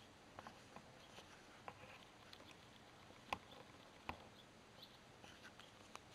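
Near silence with a few faint, sharp clicks scattered through it; the loudest comes about three seconds in and another about a second later.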